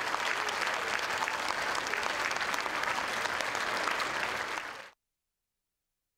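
Audience applauding, a dense patter of many hands clapping that fades out quickly about five seconds in.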